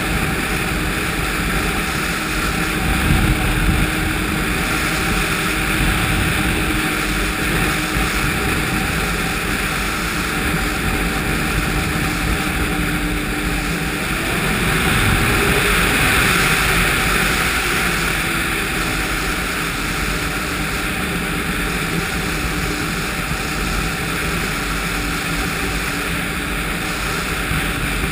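Ski-Doo snowmobile's 1200 4-TEC three-cylinder four-stroke engine running at speed, mixed with wind rushing over the microphone. The engine note swells briefly about halfway through.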